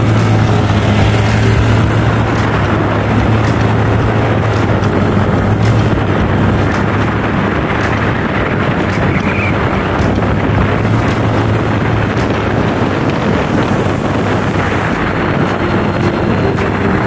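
Honda PCX 160 scooter riding at speed: a steady low engine drone under loud wind noise on the microphone.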